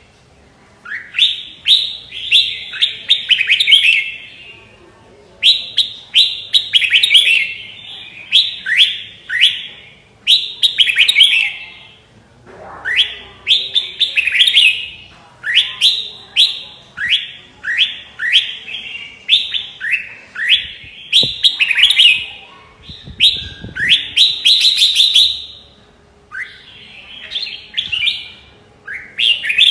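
Red-whiskered bulbul singing: quick, clear rising notes strung into short phrases, repeated over and over with brief pauses between bouts.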